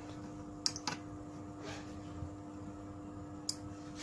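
A few short, sharp clicks, two close together about a second in and one more near the end, over a steady low electrical hum, as the smart relay switch module's work mode is being changed.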